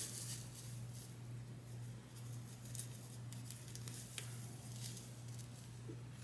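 Hands tugging and smoothing a tight-fitting human-hair wig into place on the head: soft scratchy rustles of hair and lace with a couple of light clicks, over a steady low hum.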